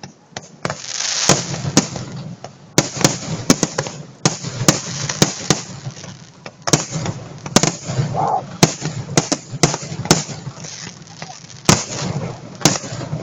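Fireworks going off: a rapid, irregular series of sharp bangs and pops, several a second at times.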